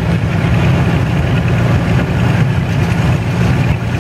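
Antique farm tractor engine idling steadily.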